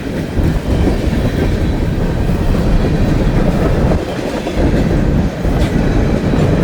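A freight train's cars rolling past, with a loud, steady rumble of steel wheels on the rails.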